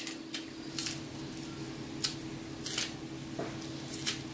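Green banana skin being peeled off by hand in strips: a series of short, sharp snaps and tearing sounds at irregular intervals. A steady low hum runs underneath.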